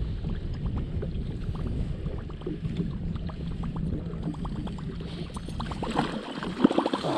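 Low rumble of wind and choppy water around a fishing boat, with small irregular laps and splashes. A fish breaks the surface beside the boat with a splash near the end.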